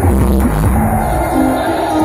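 Loud dance music for a routine; its heavy bass beat drops out about half a second in, leaving lighter sustained melody tones.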